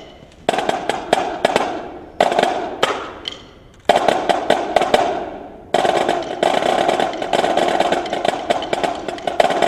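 Marching drums in a drum-off. A few loud, accented hits each ring out and fade, with short pauses between. From about six seconds in comes a dense, continuous run of rapid drumming.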